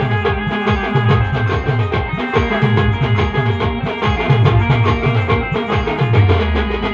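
Instrumental band music: a fast, steady beat of deep drum strokes, each dropping in pitch, under held melody notes.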